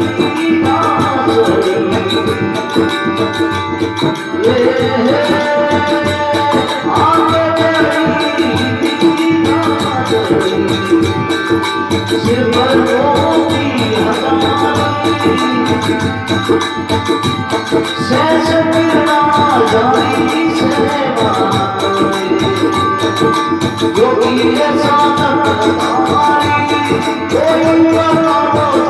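Rajasthani devotional bhajan music: a melody with gliding pitch over a steady, busy beat of drum and jingling, rattling hand percussion.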